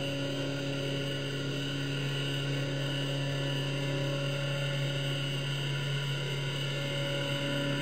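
Steady low drone of a boat engine heard through the water, a constant hum with a few held higher tones above it.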